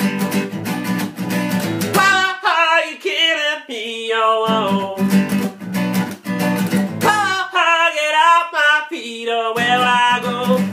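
A man singing over a strummed acoustic guitar. Twice the strumming pauses for a couple of seconds while the voice carries on alone.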